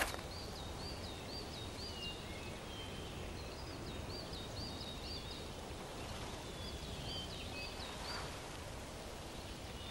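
Forest ambience: a steady soft hiss with three short runs of high, quick bird chirps, each run five or six chirps at about three a second.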